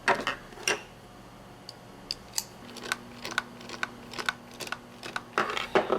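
Scattered light clicks and taps of small parts being handled as screws are set back into the plastic handle halves of a Bosch jigsaw. The loudest clicks come right at the start and in a quick cluster near the end.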